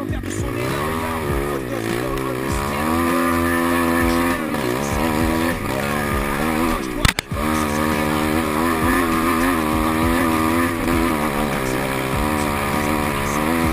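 150 cc pit bike engine running under way, its pitch climbing and dropping again and again with the throttle, with a single sharp knock about halfway through.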